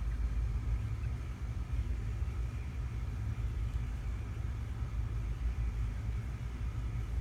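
A steady low rumble with no distinct clicks or other events.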